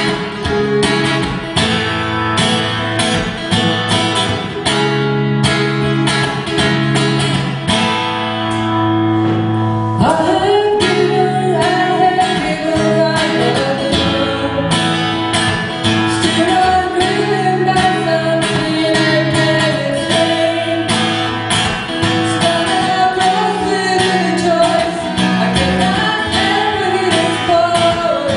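Live rock band playing: strummed guitars, bass and drums open the song, and a woman's lead vocal comes in about ten seconds in.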